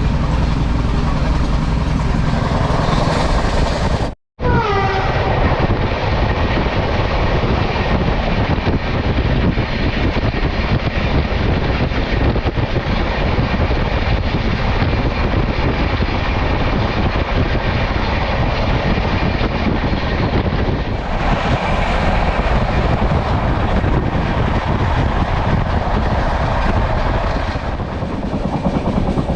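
Passenger train running at speed, heard from inside the coach: a steady rumble and rail noise, broken by a brief dropout about four seconds in.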